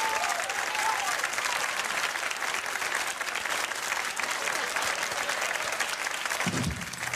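Studio audience applauding steadily, with a voice or two calling out in the first second.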